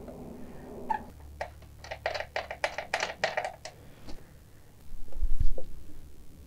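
Chimera quick-access seat screw being turned out by hand on the motorcycle: a quick run of about a dozen clicks over two seconds, then a low thump a little before the end.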